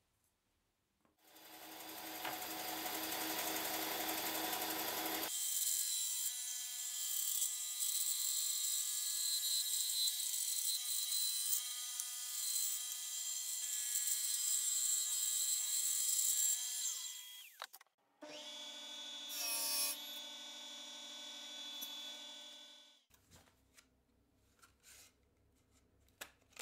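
Benchtop band saw running and cutting a wood blank, with a steady whine for about twelve seconds before it is switched off and its pitch falls away. Before it come a few seconds of rougher power-tool noise, and after it a shorter run of another machine with a lower hum, then a few faint clicks of handling.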